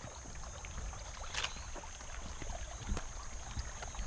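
Outdoor field ambience by a rocky riverbed: a low rumble with many small scattered clicks, two louder knocks about a second and a half and three seconds in, and a faint steady high whine.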